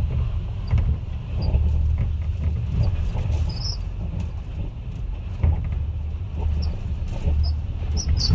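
Low, steady rumble of typhoon wind that swells and eases, with scattered light clicks and taps.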